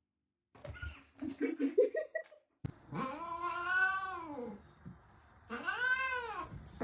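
A cat yowling: two long drawn-out calls, each rising and then falling in pitch, the first lasting about two seconds and the second about one second, after a shorter burst of sounds near the start.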